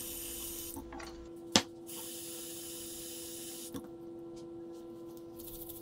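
Tap water running from a bathroom faucet into a glass bottle, a steady hiss, with a sharp click about a second and a half in and another near four seconds.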